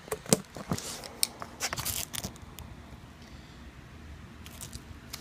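Hands working the harness webbing at the sewing machine: scattered short clicks and rustles, busiest in the first couple of seconds and again near the end.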